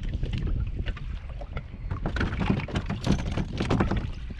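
Wind buffeting the microphone over choppy water around a kayak, with a busy run of clicks and knocks from about two seconds in until near the end.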